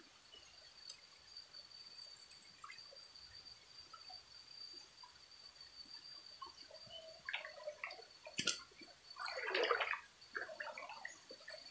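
Shallow stream water faintly splashing and gurgling, with a louder swell of splashing about three-quarters of the way through. A steady high-pitched tone runs underneath, and there is a single sharp click a little after the middle.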